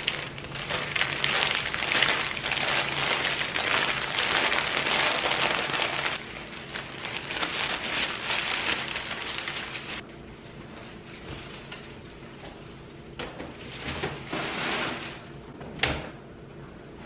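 Crinkling and rustling of a plastic flower-bouquet sleeve being pulled open and handled. It is loud and dense for about the first ten seconds, then quieter rustles follow, and there is a single sharp knock near the end.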